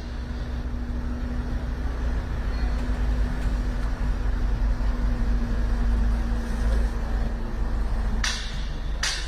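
Steady low engine rumble with a constant hum, like a heavy vehicle running close by, with two short hisses about eight and nine seconds in.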